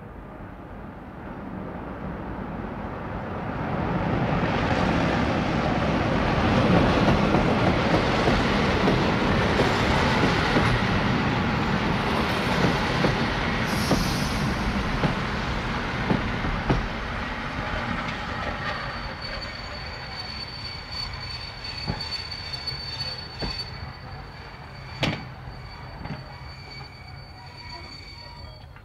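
Road and tyre noise of a car driving, heard from inside the cabin: it swells over the first few seconds, is loudest in the middle and then slowly eases off. A thin steady high whine comes in about two-thirds of the way through, and there is a single sharp knock near the end.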